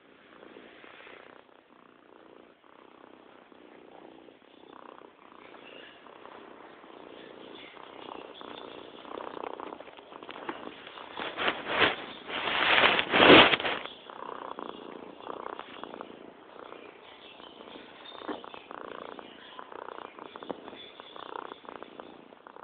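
Domestic cat purring steadily, with a louder, rougher noisy stretch of about two seconds midway.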